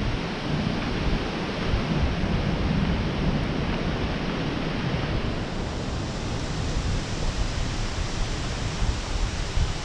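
Storm wind rushing steadily ahead of a thunderstorm, with a low rumble of wind buffeting the microphone.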